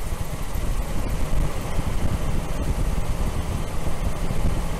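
Nissan Frontier's 2.4-litre four-cylinder engine running steadily just after starting, with a fresh fuel pressure regulator fitted to cure a hot no-start.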